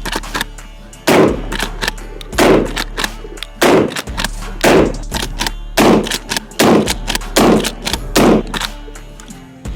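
12-gauge lever-action shotgun firing eight shots in quick succession, roughly a second apart, each shot ringing out briefly, over background music.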